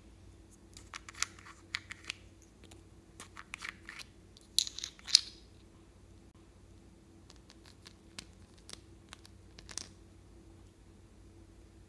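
Plastic screw caps of a small contact lens case being twisted off: a run of sharp clicks and light pops, the loudest pair about five seconds in. Later, lighter clicks and scrapes as a thin pick digs into the soft makeup inside.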